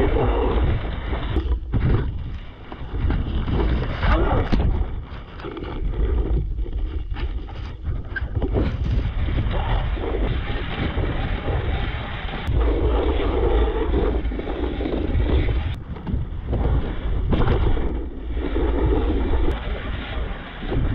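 Strong wind buffeting the microphone: a dense, heavy noise that swells and dips in gusts every few seconds.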